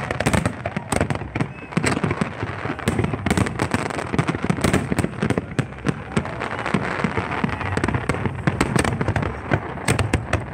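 Fireworks display going off in a dense, unbroken barrage: many bangs and crackles in quick succession.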